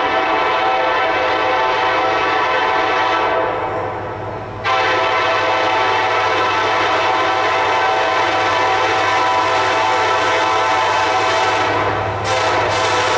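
Air horn of a Kansas City Southern SD70MAC locomotive blowing a long, loud chord for the grade crossing as the train approaches. The horn lets up briefly about four seconds in, then sounds again, with a short dip near the end.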